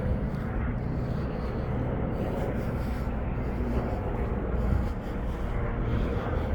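Steady rumble of highway traffic, engines and tyres with no single vehicle standing out.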